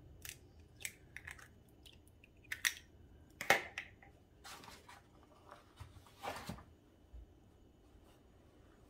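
Eggs being cracked and their shells pulled apart by hand over a bowl: a series of small sharp cracks and clicks, the loudest about three and a half seconds in, dying away in the last couple of seconds.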